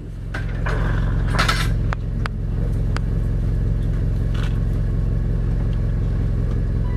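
Vehicle engine idling steadily with a low, even drone, and a brief rustle and a couple of faint clicks over it.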